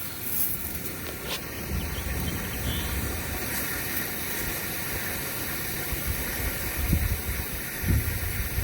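Water turned on and running under pressure, a steady hiss, to find where a pipe is leaking; a few low bumps come near the end.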